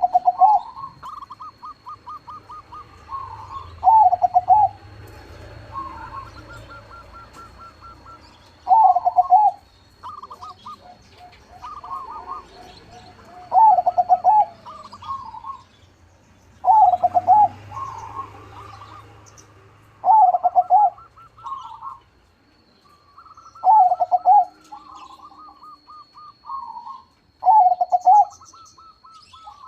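Crossbred perkutut (zebra dove) cooing: a loud, rolling coo phrase comes every three to four seconds, with softer, quick trilled cooing between the phrases. A faint, steady high whine runs underneath.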